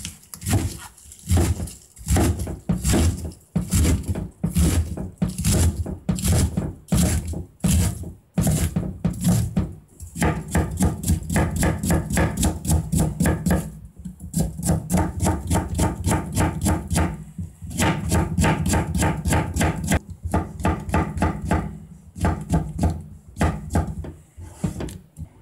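Kitchen knife chopping cabbage and then slicing shiitake mushrooms on a plastic cutting board. The knife strikes the board in quick runs of about five strokes a second, broken by short pauses.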